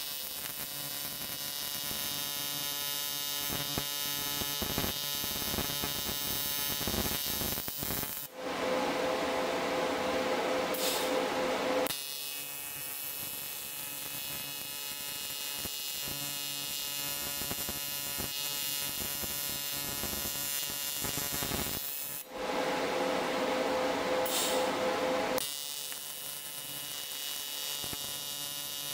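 TIG welding arc buzzing steadily. Its tone and loudness shift several times, with short dips about eight seconds in and again about twenty-two seconds in.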